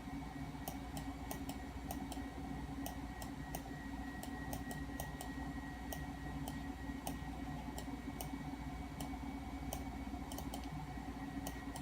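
Irregular clicking of a Macintosh Classic's mouse button, about two clicks a second, over a steady electrical hum.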